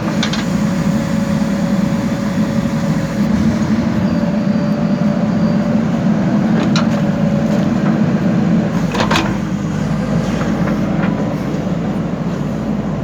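JCB backhoe loader's diesel engine running steadily under load while digging, with a faint whine over it and a few short knocks, the loudest about nine seconds in.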